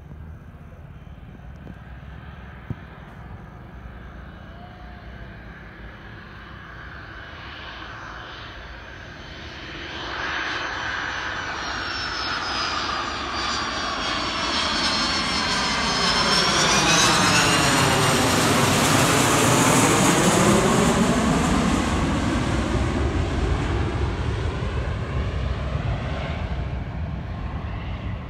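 Boeing 737-200's Pratt & Whitney JT8D low-bypass turbofan engines in a loud, very close overhead pass. A rumble with a high whine grows from about a third of the way in and peaks just past the middle as the jet goes overhead. The whine glides down in pitch as it passes, then the sound slowly fades as it moves away.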